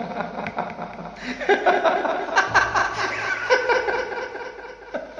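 A man laughing in a run of chuckles, starting about a second in and tailing off near the end.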